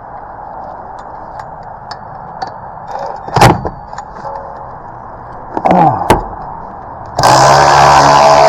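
Metal tools knocking against the brake caliper a few times, then about seven seconds in a small motor starts abruptly and runs loud and steady, in the manner of a power tool running a caliper bolt.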